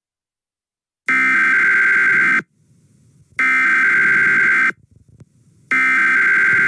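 Emergency Alert System SAME header: three identical bursts of screeching digital data tones, each a little over a second long with about a second's pause between them. This is the coded header that opens an emergency alert.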